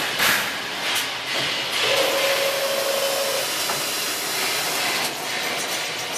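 Toilet paper rewinder line running, a steady machine noise. About two seconds in, a steady tone comes in and holds for over a second.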